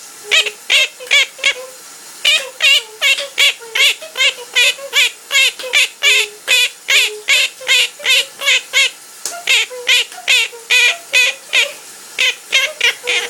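Pet parrot singing: a long run of short repeated notes, about three a second, with brief breaks about two seconds in and again past the middle.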